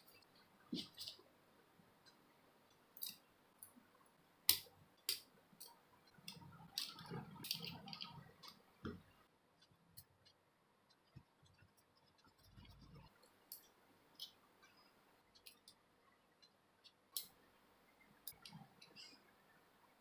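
Quiet handling of a plastic model kit: scattered single light clicks of plastic parts and soft rustling of a fabric cloak as hands fit it onto the assembled model. The rustling is longest a little past the middle.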